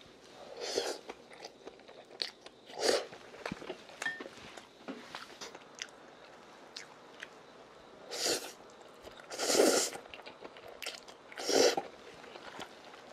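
A person eating stir-fried udon noodles: five short slurps, the longest about half a second, with chewing and small clicks of chopsticks against the bowl in between.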